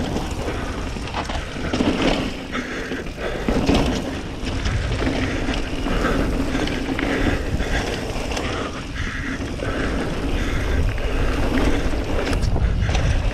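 YT Capra enduro mountain bike descending a dirt trail: steady tyre noise over the ground, with the bike rattling and knocking over bumps and wind buffeting the helmet camera's microphone.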